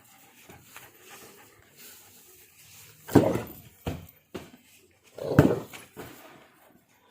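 Two dogs play-wrestling, with low scuffling and two loud, sudden sounds about three seconds and five and a half seconds in.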